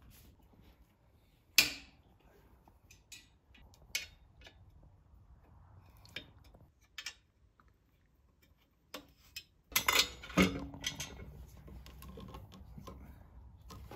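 Metal clutch parts clinking and knocking as they are handled on the engine's flywheel. There is a sharp knock about a second and a half in, a few lighter clinks after it, and a quick cluster of clatters about ten seconds in.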